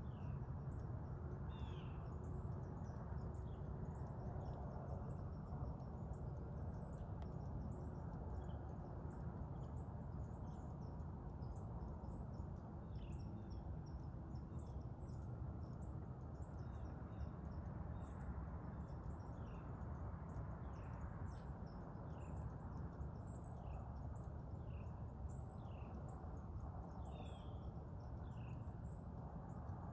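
Faint woodland ambience: many short, high bird chirps, each falling in pitch, scattered throughout over a steady low rumble.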